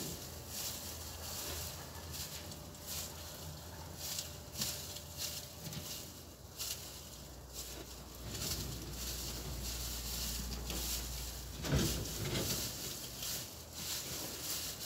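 Irregular short scratchy rustles of hands pulling tufts of fur from a California rabbit's chest and belly, several a second. A low rumble comes in for a few seconds past the middle.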